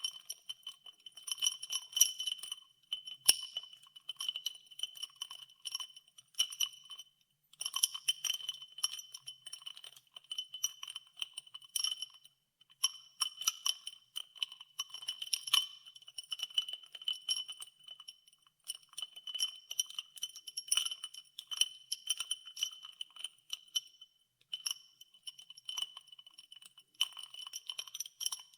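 Ice cubes stirred in a glass of water, clinking over and over against the glass, which rings with a clear high tone. The stirring stops for a moment about three times.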